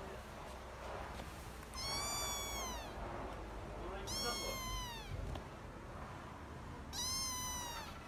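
A domestic cat meowing three times, about every two and a half seconds. Each high meow lasts about a second and slides down in pitch at the end.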